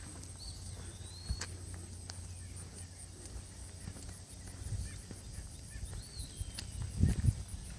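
Footsteps on a park trail while a bird calls twice, each a thin whistled note that rises and then slides down, the two calls about six seconds apart. The loudest footfalls come near the end.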